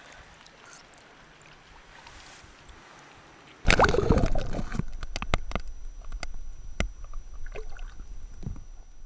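Lake water lapping and trickling faintly around a trout held in the shallows. About a third of the way in the microphone plunges underwater with a sudden loud rush, followed by muffled underwater sloshing with many sharp knocks.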